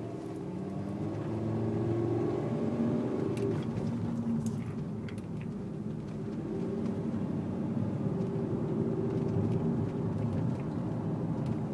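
Car engine and road noise heard from inside the moving car's cabin: a steady hum whose engine note rises and eases a few times.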